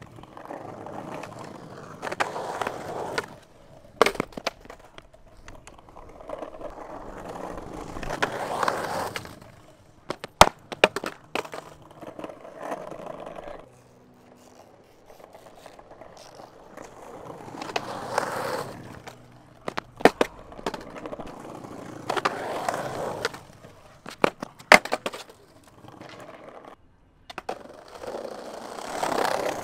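Skateboard wheels rolling over concrete and brick pavers, the rolling noise swelling and fading several times. Sharp single cracks come between the swells: the tail popping and the board landing.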